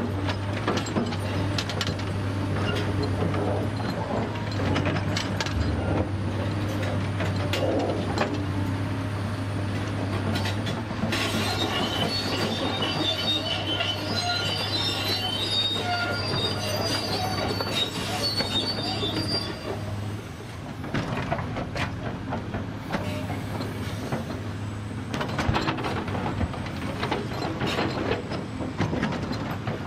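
Caterpillar 336E excavator's six-cylinder diesel engine running steadily under hydraulic load as it digs and swings, with scattered knocks. A high metallic squeal comes in about a third of the way through and lasts several seconds.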